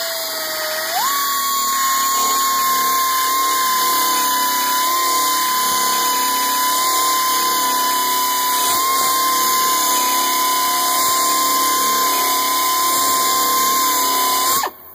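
Astro Onyx 3037 half-inch by 18-inch air belt sander grinding through a spot weld in car body sheet metal. It makes a loud, steady high whine that climbs in pitch about a second in as it comes up to speed, then cuts off suddenly near the end.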